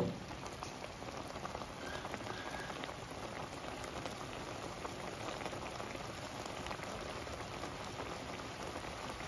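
Egg, tomato and chili mixture simmering in a nonstick wok: a steady bubbling and light sizzling with faint tiny pops.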